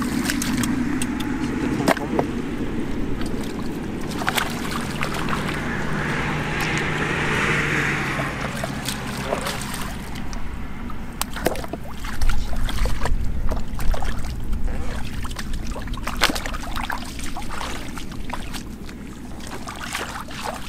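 Shallow muddy water splashing and sloshing in irregular bursts as someone wades through it, stirring the mud and grabbing fish by hand. A steady low rumble lies under it throughout.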